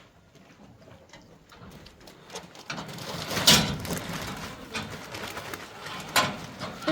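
Korean Hanwoo cattle feeding at the trough: rustling and munching with a few sharp knocks. It grows louder about three seconds in.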